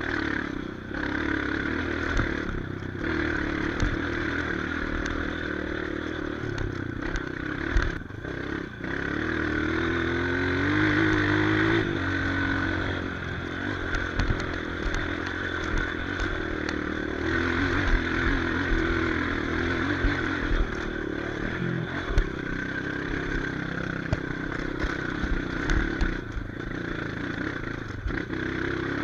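Off-road trail motorcycle engine running and revving on a rocky climb, rising in pitch about ten seconds in, with irregular knocks and clatter throughout.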